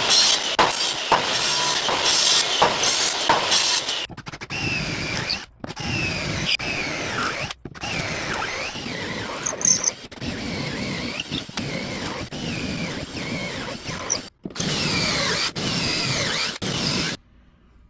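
Cordless drill boring a run of pocket holes, its motor whine rising and falling in pitch as the bit loads and frees, in short clips separated by abrupt cuts.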